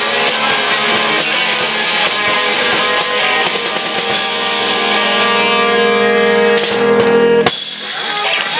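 Live rock band playing amplified electric guitars over a drum kit: a driving beat gives way to a long held chord, which cuts off about a second before the end, leaving a ringing wash as the song finishes.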